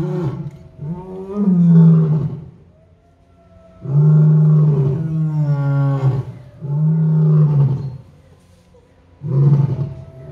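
Male lion roaring in a bout of deep, drawn-out roars, about four in a row, each a second or two long with short pauses between.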